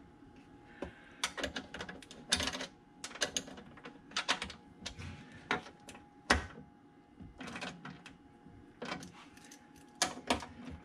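Irregular clicks and clacks from the metal and plastic parts of a Tesla Model Y frunk latch assembly being handled and fitted by hand, coming in short clusters with a few sharper knocks.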